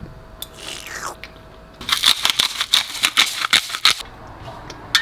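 Butter sizzling in a hot frying pan, with a dense burst of crackling that starts about two seconds in and lasts about two seconds.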